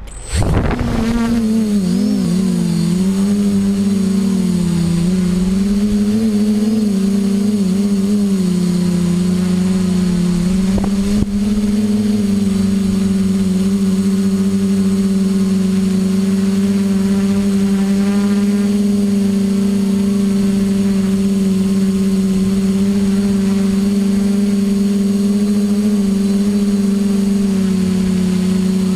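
A multirotor drone's propellers spin up for takeoff. The pitch wavers for the first eight seconds or so as it climbs, then settles into a steady hum as it hovers. There is one brief click about eleven seconds in.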